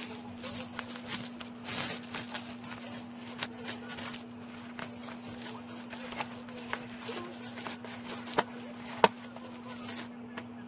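A thin plastic protective sleeve rustling and crinkling as a tablet is handled and laid back into its cardboard box, with a sharp tap about nine seconds in. A steady low hum runs underneath.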